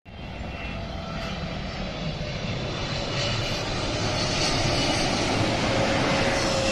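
Jet airliner on landing approach, its engine noise growing louder as it draws near, with a faint whine slowly falling in pitch.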